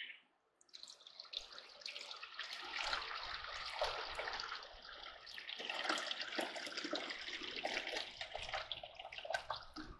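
Water poured from a stainless-steel kettle into a Cuisinart coffee maker's water reservoir. It is a steady splashing trickle that starts about a second in and stops just before the end.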